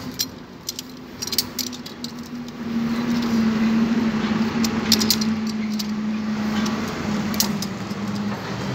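Metal climbing hardware, carabiners and rigging gear, clinking in scattered sharp clicks as climbing rope is handled and rigged. A steady motor-vehicle engine hum comes up about a third of the way in and holds.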